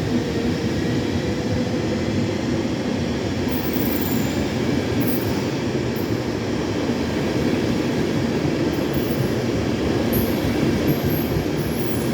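ÖBB class 1144 electric locomotive hauling a long rake of double-deck coaches, running steadily through the station with a continuous rolling noise and short high-pitched patches over it from about halfway through.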